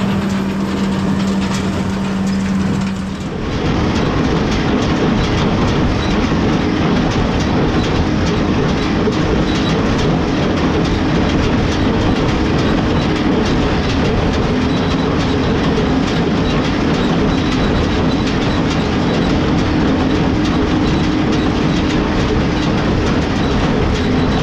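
International 1066 tractor's diesel engine running under load while the New Holland Hay Liner small square baler works, with a steady mechanical clatter from the baler. The mix of sound shifts a little over three seconds in.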